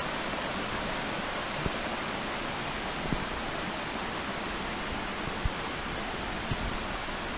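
Small waterfall cascading down a rock slab: a steady, even rush of falling water.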